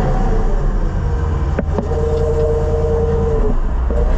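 White 4-150 tractor's Caterpillar 3208 V8 diesel engine running steadily, heating its new chrome exhaust pipe.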